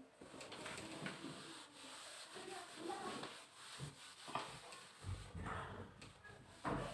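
Handheld whiteboard eraser rubbing across a whiteboard in a series of uneven wiping strokes, wiping marker writing off the board.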